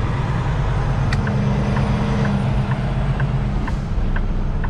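Kenworth T680 truck engine running at low speed, heard from inside the cab as a steady low hum. A light tick repeats about twice a second from about a second in.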